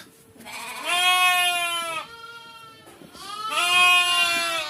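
Goat bleating: two long, steady-pitched bleats of about a second each, one near the start and one near the end.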